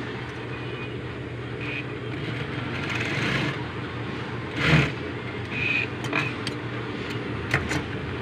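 A steady low hum in the background. Over it come short rustles of cloth being handled, one louder rustle about halfway through, and a few small sharp clicks near the end.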